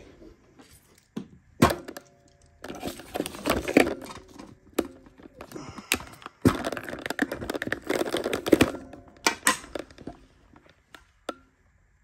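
Handling on a wooden desk: several sharp knocks and clicks, with stretches of rubbing and rustling in between, as tools and lock parts are moved about and the camera is repositioned.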